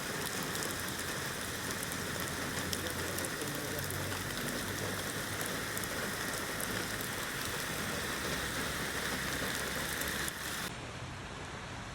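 Steady rain falling, a continuous rush filled with the fine patter of drops hitting surfaces. About ten seconds in it cuts abruptly to a quieter, duller rush.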